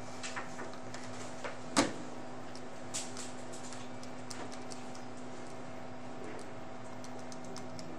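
A single sharp knock about two seconds in, then a run of small clicks as the keys of a TI-84 Plus CE graphing calculator are pressed, over a steady low hum.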